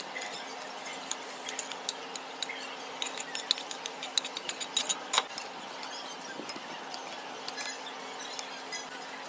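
Spoon clinking against a china bowl while stirring chopped fruit: quick, irregular clinks, thickest in the middle, over a steady low hum.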